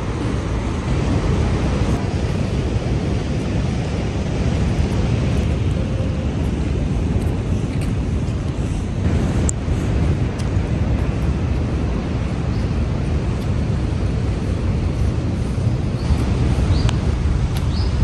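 Steady outdoor background noise, an even roar heaviest in the low end, with a few faint short high chirps near the end.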